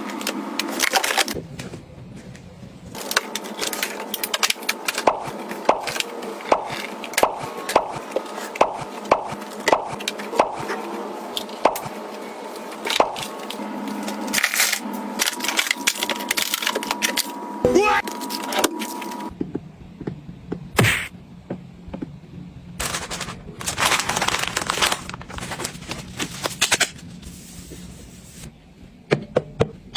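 Objects being handled and set down: a quick run of sharp clicks and taps, about one or two a second, with rustling in between. After about 19 seconds the taps thin out, leaving a few knocks and short bursts of rustling.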